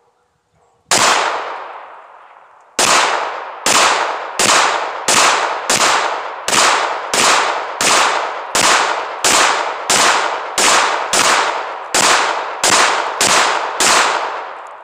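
Handgun fired about twenty times: a single shot, a pause of about two seconds, then a steady string of shots about two a second, each trailing off in echo.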